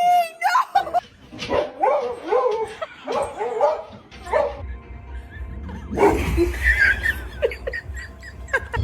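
A dog vocalising in short barks, yips and whines that bend up and down in pitch, with a louder outburst about six seconds in.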